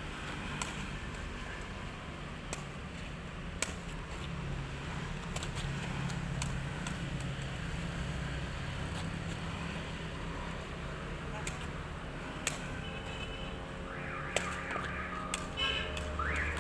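Sharp, irregular knocks of a sepak takraw ball being kicked back and forth, over a steady low hum. Near the end come short shouts and calls from the players.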